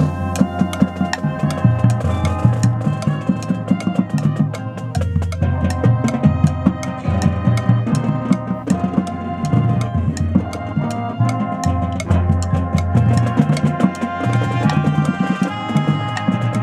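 Marching band playing: brass with sousaphones holding loud sustained chords over drums and front-ensemble percussion, sharp drum strokes in a steady rhythm.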